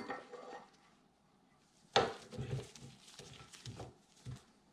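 Manley steel connecting rod clinking and knocking against a rod vise fixture as it is set in place: one sharp clink about two seconds in, then a few softer clicks and knocks.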